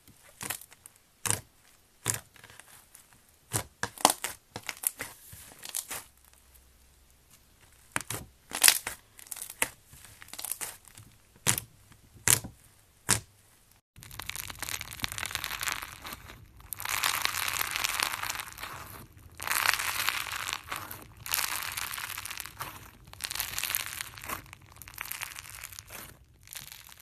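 Crunchy slime being squeezed and pressed: sharp separate pops and clicks at first, then after a sudden change about halfway, dense crackling crunches in repeated squeezes about every second and a half.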